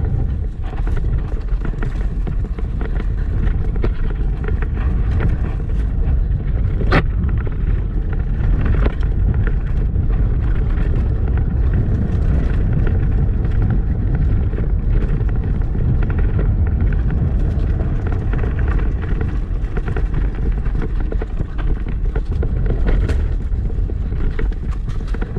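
Wind rushing over the microphone while a downhill mountain bike rattles over a rough trail at speed. Tyres rumble and the bike clatters steadily, with a sharp knock about seven seconds in and another near the end.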